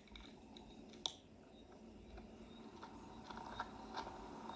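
Faint sharp clicks, two of them in the first second or so, over a quiet background, with a soft hiss building up near the end.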